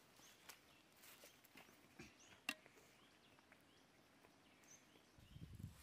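Near silence outdoors with a few faint ticks and one short, sharp click about halfway through, then a brief low rumble near the end.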